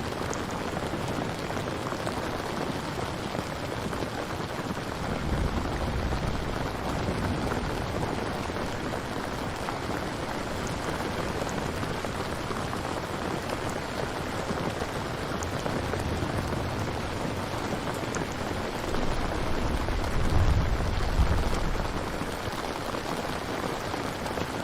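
Steady rainfall, an even hiss of drops, with low rumbles of distant thunder swelling about five seconds in, again around the middle, and most strongly near the end.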